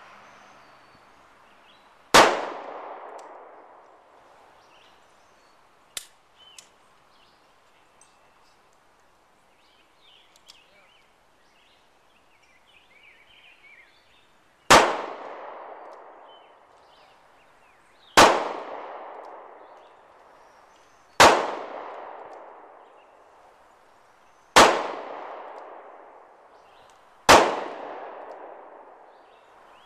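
Six handgun shots, one early and then five more about every three seconds, each trailing off over a second or so. A few faint clicks come between the first two shots.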